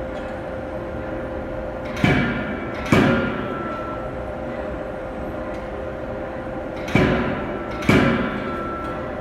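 Anyang C92K-25KJ CNC hydraulic die forging hammer striking hot steel knife blanks: four heavy blows in two pairs, each pair a little under a second apart and the pairs about five seconds apart, each blow ringing briefly. A steady machine hum runs underneath.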